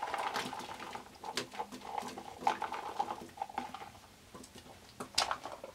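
Diced bell peppers tipped from a plastic container into a stainless steel mixing bowl of egg mix: light clicks and taps of the pieces and the container against the bowl. A faint whining tone runs under the first three seconds.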